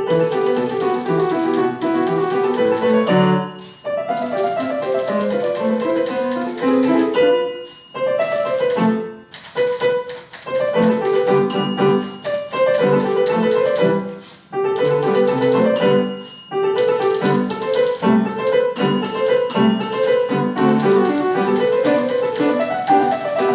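Piano music with rapid typewriter keystrokes clacking along with it, stopping briefly several times.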